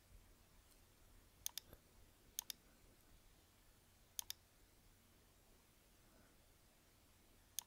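Faint computer mouse clicks: four quick double clicks spread across a few seconds, over near-silent room tone.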